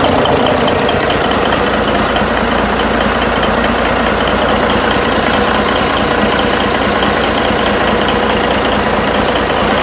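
Mitsubishi S6A3 inline six-cylinder turbocharged diesel engine running steadily and loudly, with no change in speed.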